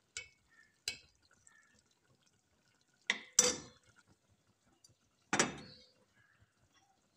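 A metal serving spoon clinking and scraping against a metal cooking pot and a plate as curry is spooned out. There are a couple of light clicks at first, then louder clinks with a brief ring about three seconds in and again about five and a half seconds in.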